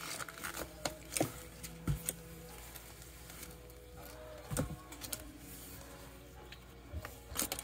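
Irregular light clicks and scrapes on cardboard as a kingsnake, coiled around a rat, shifts its coils against the floor and walls of a cardboard box. Some are sharper taps near the start and around the middle and end, over a faint steady hum.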